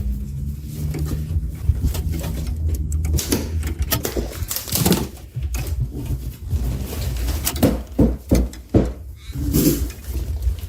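Irregular clicks and knocks of parts and tools being handled, loudest a few times in the second half, over a steady low hum.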